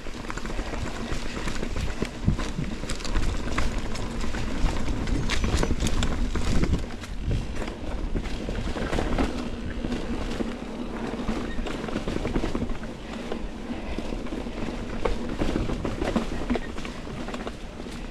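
Mountain bike rolling along rocky, rooty dirt singletrack: continuous tyre noise with frequent knocks and rattles from the bike as it goes over rocks and roots. It is busiest in the first half.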